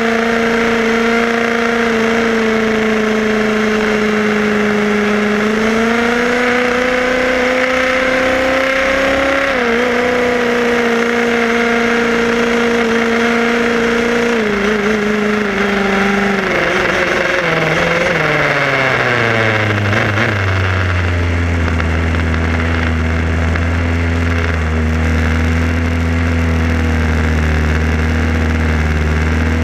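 Small engine running at a steady pitch that lifts slightly for a few seconds, then winds down in pitch about two-thirds of the way through and settles into a low, steady idle as the RC car comes to a stop.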